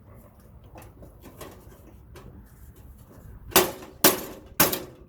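Light clicking and prying, then four sharp metal strikes about half a second apart, each with a short ring: a tool banging at a switch in a toaster oven's sheet-metal housing to knock it loose.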